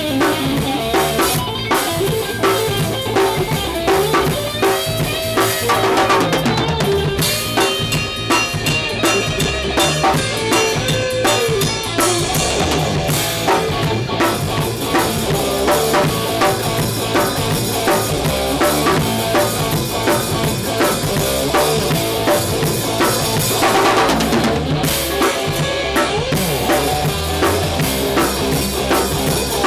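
Live band jamming together: a drum kit with kick, snare and cymbals keeping a steady beat under an electric guitar and an electric bass.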